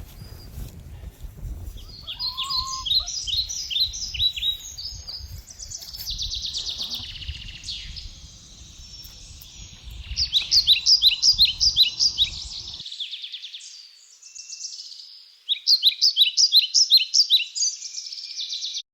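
Songbirds singing: three runs of quick, high descending chirps, about four a second, with brief trills between them. A low rumble of wind on the microphone underlies the first two-thirds and cuts off abruptly.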